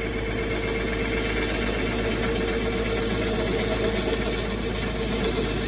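Wood lathe running steadily, with a steady hum, while a freshly sharpened bowl gouge cuts into the end grain of a very hard wood blank, giving a continuous rough scraping. The wood is so hard that the cut makes mostly dust rather than shavings.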